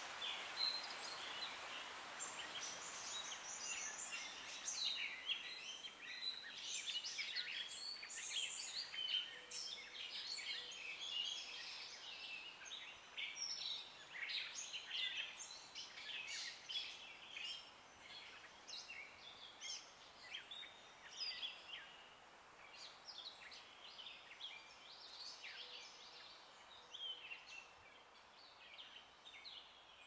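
A woodland chorus of small songbirds, many short chirps and quick song phrases overlapping, thinning out in the last third. A soft hiss of a stream runs underneath at the start and fades away.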